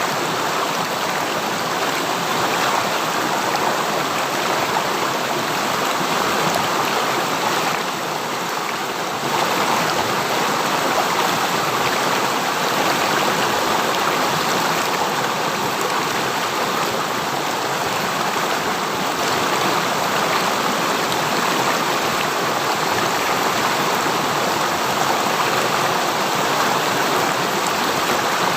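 River water rushing and splashing over rocks in a steady, even stream.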